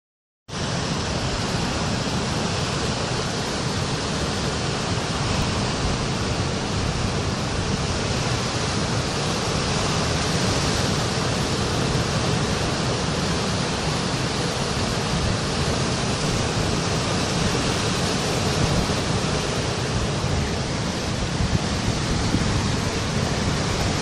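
Sea surf breaking and washing over a rocky shore, a steady rush of white water with no single breaker standing out.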